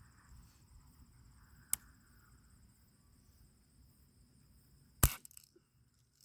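BB gun being fired: a small sharp click about two seconds in, then a loud sharp crack of the shot about five seconds in, followed by a few faint clicks. The shot sounds odd to the shooter.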